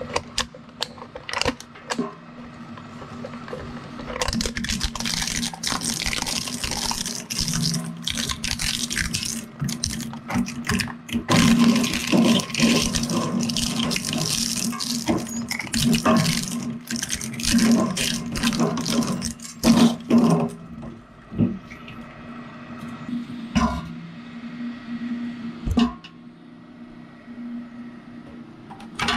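Twin-shaft shredder crushing a pair of binoculars: a steady motor hum under dense cracking and crunching, loudest from about four seconds in to about twenty, then sparser knocks as the last pieces go through.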